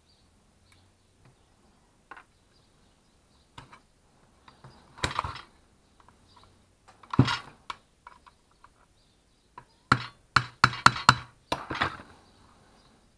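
Screwdriver and hands working on the metal blade guard and arbor of an Iskra handheld circular saw: scattered knocks and clinks, with scraping, rattling handling about five and seven seconds in. A quick run of sharp metallic knocks comes about ten seconds in.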